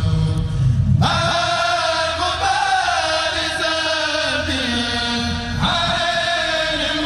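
Men's voices of a Mouride kourel chanting a khassida in unison. A higher lead voice comes in about a second in with long held notes that slide in pitch, over lower voices, and a new phrase begins near the end.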